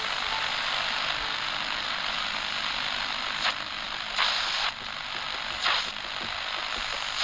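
Steady static-like hiss, with three short, louder bursts of noise in the second half, the middle one lasting about half a second.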